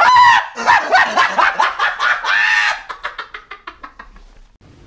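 A man laughing hard in loud, high-pitched bursts that tail off into quicker, fainter pulses and die away near the end.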